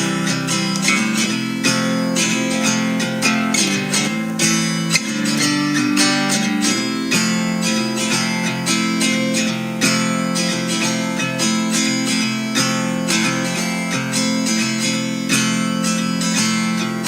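Background music: strummed acoustic guitar at a steady pace, starting abruptly.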